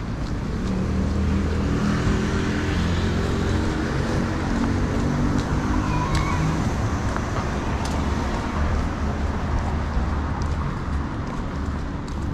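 Street traffic: motor vehicle engines running with road noise, one vehicle passing close and loudest a few seconds in.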